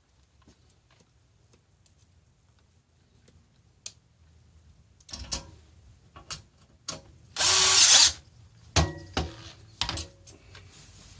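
A power drill/driver runs in one short, loud burst, driving a bolt into the stool's metal frame. Scattered knocks and clicks of the tool and metal parts come before and after it.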